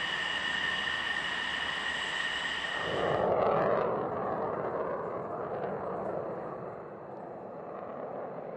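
F-15E Strike Eagle jet engines at taxi: a steady high-pitched whine. About three seconds in it changes abruptly to the rushing noise of the jet taking off in full afterburner, which then fades as it climbs away.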